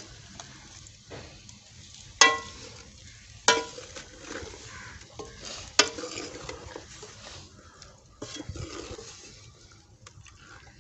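Steel ladle stirring chicken pieces as they sizzle in an aluminium karahi, scraping the pan. Three sharp ringing clangs as the ladle strikes the pot, about two seconds in, a second later and near six seconds.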